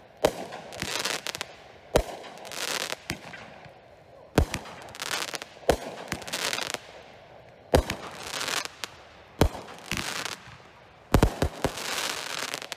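Aerial fireworks bursting overhead: seven sharp bangs spaced about one and a half to two seconds apart, each followed by about a second of crackling.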